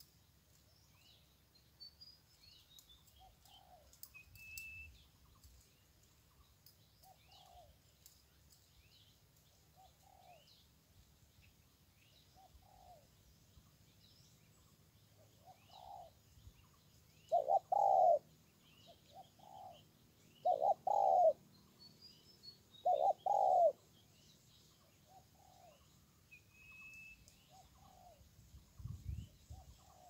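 Wild birds calling: one bird repeats a low hooting note every couple of seconds, loudest as three pairs of notes in the second half, over thin high chirps and whistles from small birds. A brief low rumble comes near the end.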